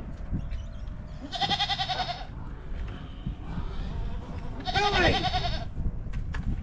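A goat bleating: two long, wavering bleats about three seconds apart.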